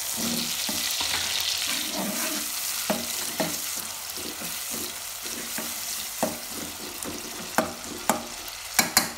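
Tomato slices and chopped garlic sizzling in hot oil in an aluminium pot, stirred with a metal spoon that scrapes and clinks against the pot. The sizzle is strongest in the first couple of seconds, and a few sharp clinks stand out near the end.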